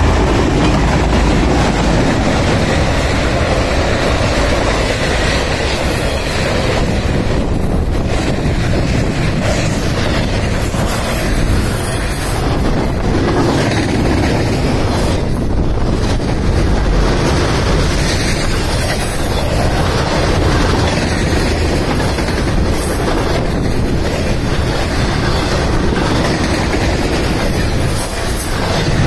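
Train rolling past close by, its wheels clattering and banging over a really bad spot in the track.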